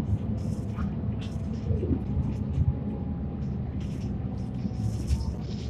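Hino Blue Ribbon city bus (QDG-KV290N1) under way, heard from inside: a steady low engine and road rumble, with a faint rising whine about two seconds in and scattered short hissing rattles.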